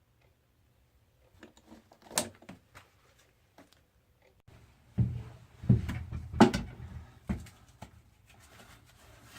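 Scattered handling noises: light clicks and taps, then a few louder knocks and rustling about five to six and a half seconds in, as a work glove is pulled on and things are moved about.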